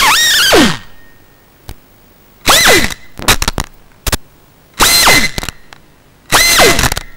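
FPV quadcopter's brushless motors whining down and cutting out within the first second. Then come four or five short bursts of motor spin-up, each falling away at once, as crash-flip (turtle) mode tries to flip the upside-down quad back onto its props.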